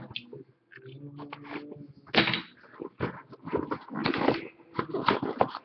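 Packaging of a hockey card hobby box being torn open and handled: plastic wrap and cardboard crinkling and ripping in a series of short, uneven tears.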